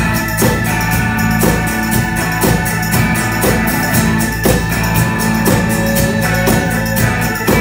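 Live rock band playing an instrumental passage: a drum kit keeping a steady beat, about two hits a second, under electric and acoustic guitars and long held chords.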